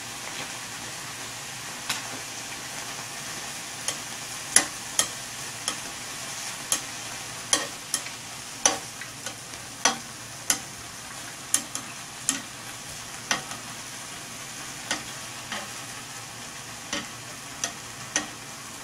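Thin beef slices frying on a hot flat grill plate: a steady sizzle with frequent sharp clicks and pops, about one or two a second.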